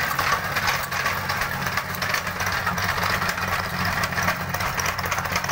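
Petrol-engine tamping rammer running steadily, its foot hammering the ground in rapid repeated impacts. The uploader says the machine is not running normally and is not compacting well.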